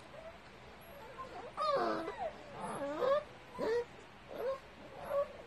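Puppies crying: about five short, high cries that rise and fall in pitch, beginning a little over a second in.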